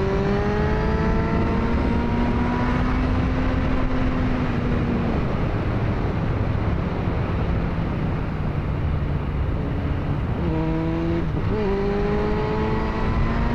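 Motorcycle engine under way, heard from the rider's position over steady wind rush: the revs climb and hold, ease off about five seconds in, then step up again with a gear change near the end.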